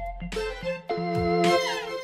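Instrumental closing music: a few struck keyboard-like chords, growing louder, then a quick run of falling notes near the end.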